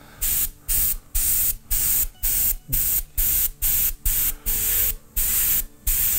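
Airbrush spraying acrylic paint in short bursts of hiss, about two a second, as the trigger is pressed and let go.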